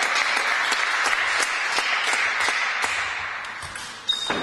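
Spectators clapping for a won point in a table tennis match, the applause dying away over the last second or so. Near the end a table tennis ball gives a sharp ping as play restarts.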